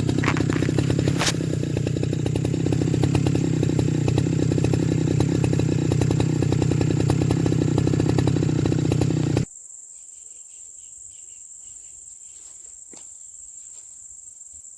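Small petrol engine of a grass-cutting machine running steadily, then cut off suddenly about nine and a half seconds in. After it stops, insects keep up a steady high chirring.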